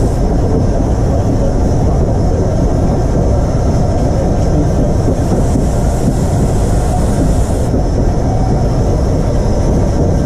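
Taff Vale Railway No. 85 steam locomotive running along the line, heard close up from its boiler top: a loud, steady rumble with no clear beat. A high hiss over it cuts off about three quarters of the way through.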